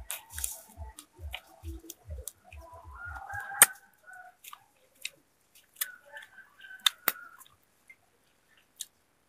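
Chewing and mouth noises close to the microphone as grilled fish is eaten: low rhythmic thumps about three a second for the first few seconds, then a few sharp clicks. Chickens cluck in the background, twice in short bursts.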